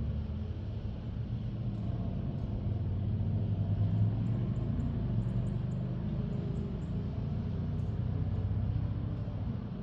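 Steady low engine rumble, swelling slightly about four seconds in.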